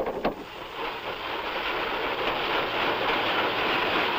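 Railway freight car rolling on yard track: a steady noise of wheels on rails that builds over the first second, with a faint high tone coming in near the end.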